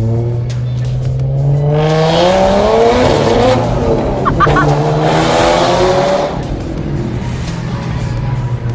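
Car engine revving hard as the car accelerates away, its pitch climbing twice in two pulls through the gears over a rush of exhaust noise.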